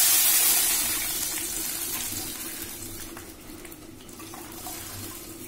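Tamarind and tomato water poured through the fingers into a kadai of hot tempering oil: a loud sizzling hiss that fades steadily as the liquid keeps splashing into the pan.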